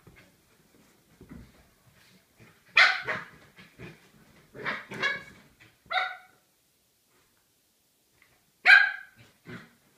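Small dog barking in play: short, sharp barks in quick bursts, loud about three seconds in, several more around five and six seconds, and another loud bark near the end.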